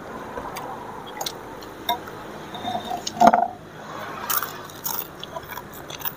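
People eating noodle soup: soft slurping and chewing, with scattered light clicks of spoons on bowls and one louder noise about halfway through.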